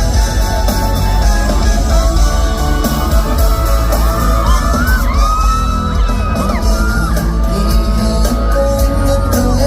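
Live pop band playing in a large arena, a lead melody line bending and gliding in pitch over the backing, with fans yelling and whooping.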